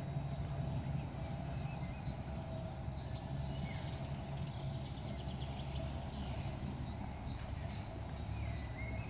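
Birds chirping now and then, with short rising calls and a quick rattling series about four seconds in, over a steady low rumble.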